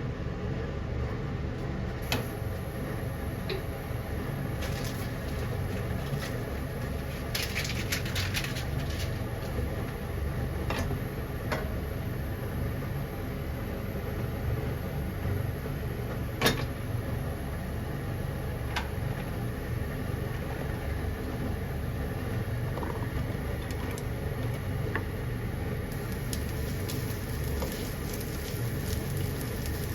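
Kitchen noise during cooking: a steady low hum with scattered clicks and clinks of utensils. The sharpest knock comes a little past the middle, and there is a quick run of clicks about a quarter of the way in.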